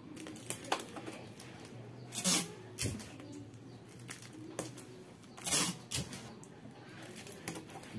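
Clear adhesive tape pulled off the roll in two short, loud rips about three seconds apart, with small clicks and rustling of the cellophane wrap in between as the tape is pressed onto it.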